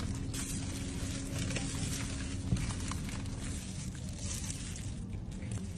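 Clear plastic food gloves and a plastic carrier bag crinkling and rustling as gloved hands spoon coleslaw and handle fried chicken, with one sharper tap about two and a half seconds in. A steady low hum runs underneath.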